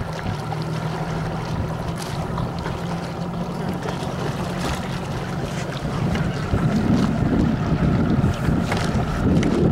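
Wind buffeting the microphone over choppy pond water, with scattered splashes from paddles stroking a cardboard boat. A steady low hum runs through the first half, and the wind grows louder about six seconds in.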